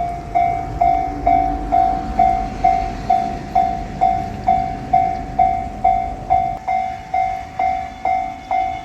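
Japanese railway level-crossing alarm ringing its electronic "kan-kan" bell tone, about two strikes a second, each note dying away before the next. A low rumble lies beneath it for the first few seconds, then fades.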